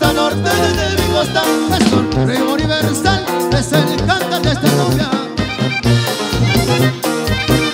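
Live regional Mexican band playing dance music: saxophone lead over button accordion, tuba bass and drums, with a steady beat.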